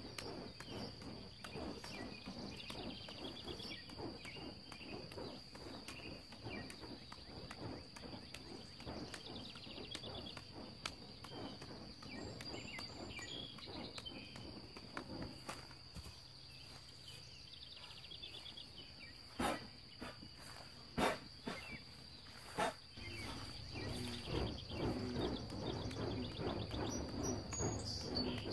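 Lit fire-juggling torches knocking softly into the hands as they are caught, over a steady high insect trill. Three louder knocks come about two-thirds of the way through.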